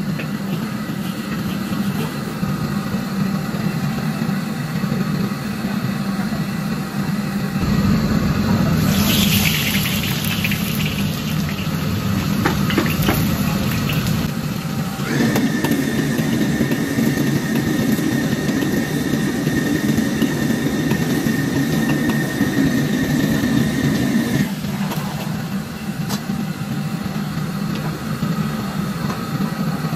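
Commercial gas wok burner running steadily under a steel wok. About eight seconds in the burner gets stronger and the hot oil sizzles loudly as food goes in, the sizzle dying down over a few seconds.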